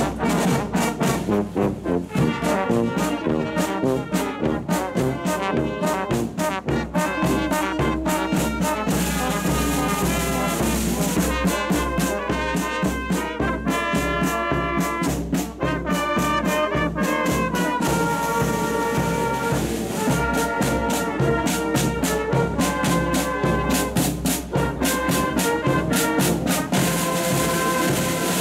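Marching brass band playing: cornets, trombones and tubas carrying a tune over a bass drum and side drums beating a steady march rhythm.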